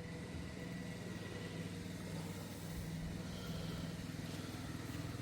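Holden Commodore engine idling steadily.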